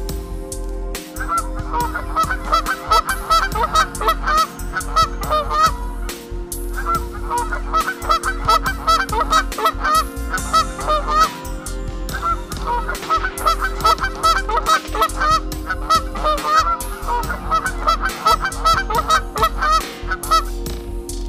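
Waterfowl honking in rapid, repeated calls, in four long bouts with short breaks, over a steady low hum.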